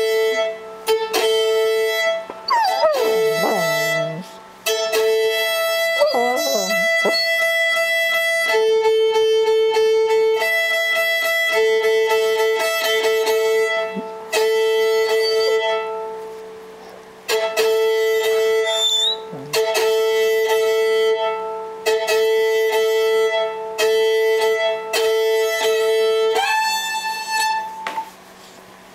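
Violin being tuned: repeated long bow strokes across the open A and E strings, the fifth being checked on new strings that are not yet quite in tune. A Dalmatian howls along in wavering, gliding cries during the first several seconds and briefly again about two-thirds through.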